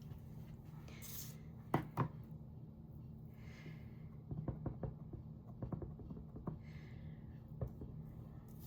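Light plastic clicks and taps of a rubber stamp and ink pad being handled on a craft table: two sharp clicks about two seconds in, then a run of small quick taps as the stamp is inked, and one more click near the end.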